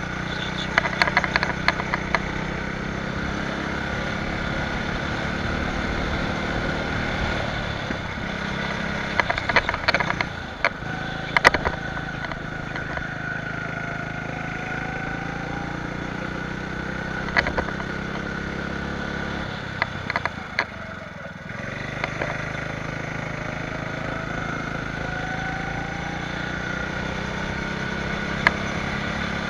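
Go-kart engine running continuously at speed, its pitch rising and falling with throttle. The sound drops briefly twice, about a third of the way in and again about two-thirds in, when the throttle is lifted. Clusters of sharp knocks and clatters come in several spots.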